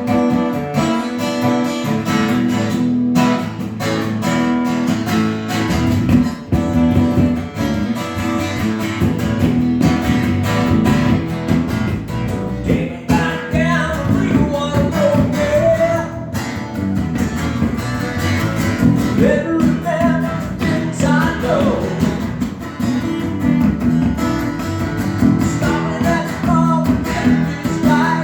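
Acoustic guitar music starts suddenly and plays steadily, with strummed chords. A wavering melody line joins over the guitar about halfway through.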